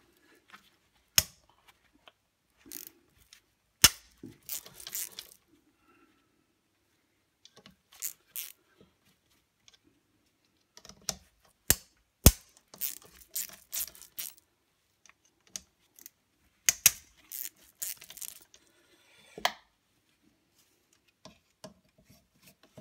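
Hand tools working on a Bosch alternator's housing screws: sharp metallic clicks and knocks with short bursts of scraping and rattling, separated by quiet pauses.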